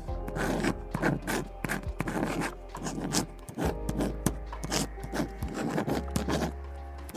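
Writing on paper: a run of short scratching strokes, about two a second, over soft lo-fi background music.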